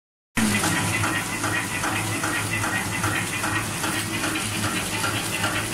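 Play-Doh packing machine running, with a steady low hum and a rhythmic clatter repeating two to three times a second as it turns out sealed bags.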